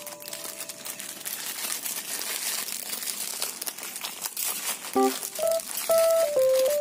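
Plastic instant-noodle seasoning sachets crinkling and tearing as they are opened by hand, a busy crackle of thin plastic. Background music with short held notes comes in about five seconds in.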